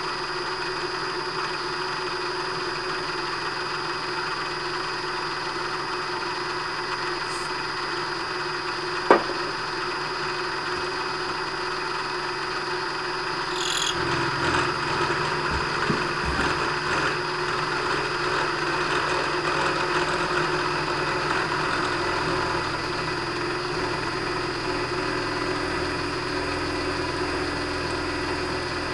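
Vertical milling machine running, its 5/8-inch end mill cutting a slot in a metal plate under hand feed. A single sharp click about nine seconds in; about halfway through the cutting grows louder and rougher.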